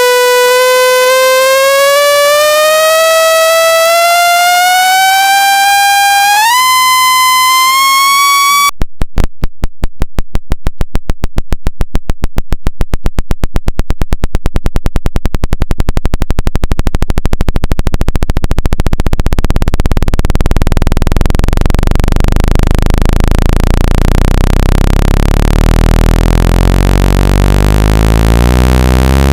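Synthesized speaker-cleaning (water-eject) test signal. A buzzy electronic tone with many overtones glides slowly upward and steps up in pitch about six seconds in. At about nine seconds it switches to a rapid train of pulses that speeds up into a harsh buzz, with a low pitch emerging and rising near the end.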